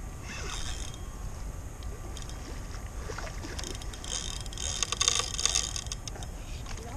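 Spinning fishing reel clicking while a fish pulls on the bent rod. The clicks turn into a dense rattling run about four seconds in, over a low steady rumble.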